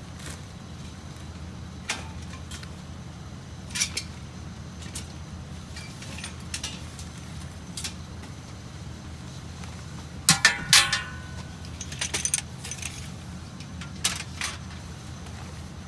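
Loose metal pieces clinking and rattling a few times, loudest in a quick cluster about ten seconds in, over the steady low hum of a running vehicle engine.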